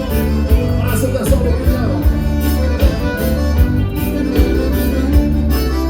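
Live gaúcho dance band playing an instrumental passage, with accordion over bass and drums and a steady dance beat with heavy bass.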